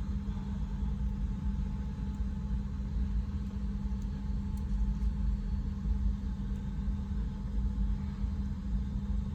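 Steady low rumble with a constant low hum, and a few faint ticks scattered through it.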